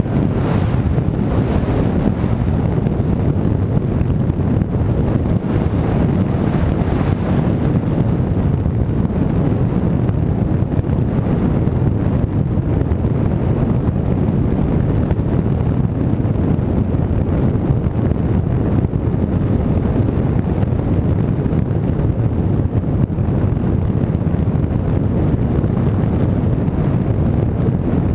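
Steady wind rush buffeting the microphone, like the airflow over a camera carried on a flying radio-controlled model.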